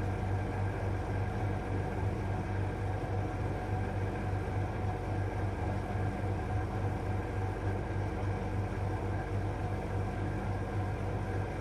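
A steady low hum that goes on without a break.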